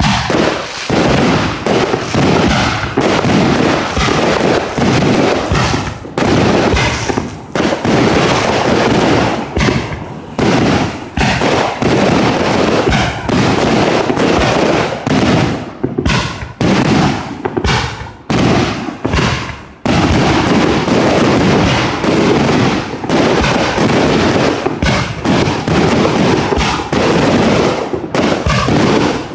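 Aerial firework shells bursting in a rapid, near-continuous barrage of bangs, with one short lull about twenty seconds in.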